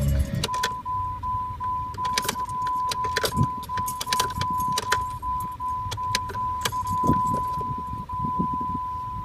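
2002 Jeep Cherokee's engine cuts off right at the start. About half a second later a steady high electronic warning chime begins, with brief gaps every half second or so, under repeated clicks and jangling of the ignition key. The key is being cycled on and off to bring up stored trouble codes on the odometer display.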